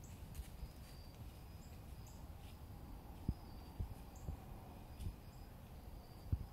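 Quiet woodland ambience with short, high bird chirps repeating about once a second and a few soft, low thumps scattered through it.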